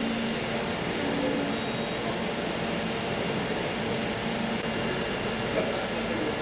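Steady, even running noise of CNC machine tools, with a vertical machining centre milling a part, and a faint steady hum under it.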